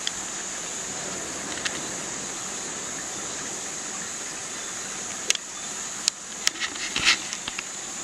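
Nighttime tropical insect chorus: a steady, high-pitched shrill drone. A few sharp clicks break in from about five seconds on.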